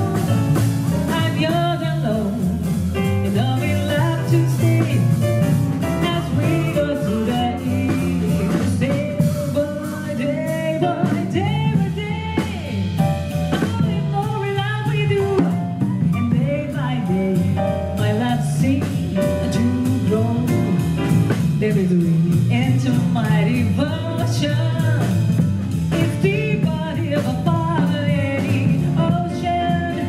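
Jazz song: a singer's voice over a band accompaniment, playing continuously.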